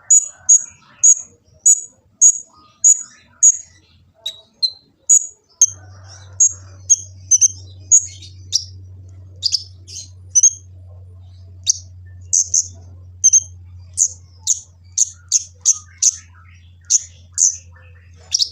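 Kolibri ninja sunbird singing a run of sharp, high chirps, about two a second, coming thicker and faster in the second half. A steady low hum comes in about five and a half seconds in.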